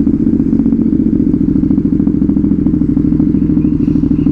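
Motorcycle engine running at a steady speed through a loud exhaust, with a fast, even exhaust beat and no revving.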